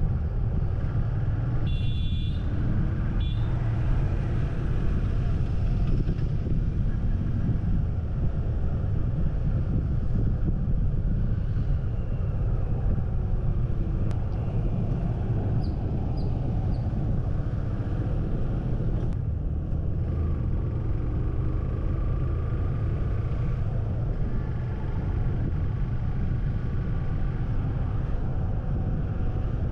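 Steady low rumble of road and wind noise from a vehicle driving along a city street, picked up by a camera riding on the vehicle. There is a brief high-pitched sound about two seconds in.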